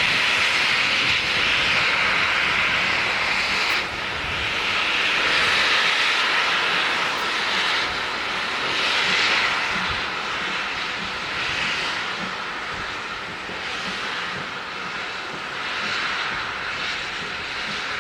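Steam locomotive working, a loud rushing hiss of exhaust steam that swells in slow, uneven surges and eases off a little toward the end.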